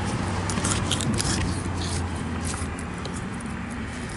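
Fillet knife cutting into a fish's flesh along its backbone, with sharp clicks and scrapes of the blade, bunched in the first second or so and again about two and a half seconds in. A low steady hum underneath fades out about two-thirds of the way through.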